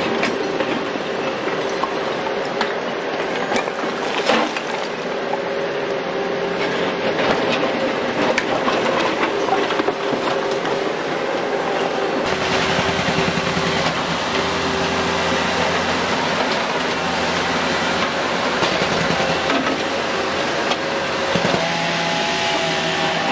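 Bobcat 337 mini excavator working: its diesel engine running steadily, with continual metallic clatter and rattle from its tracks and arm moving over broken concrete. A second, higher engine note joins near the end.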